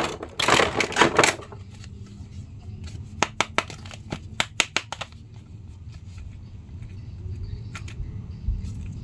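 Thin plastic packaging bag crinkling loudly as a plastic action figure is pulled out of it, followed by a run of sharp plastic clicks and taps as the hard plastic figure is handled.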